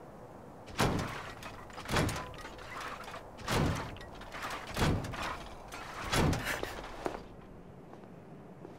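Slow, heavy footsteps of a hulking scrap monster: five thudding strides about a second and a quarter apart, each with a short ringing tail.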